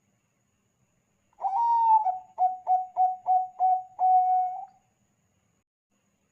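Zebra dove (Thai-bred 'bangkok' perkutut) singing one cooing phrase, starting about a second and a half in. A long opening note is followed by a quick run of about six short notes and a longer closing note.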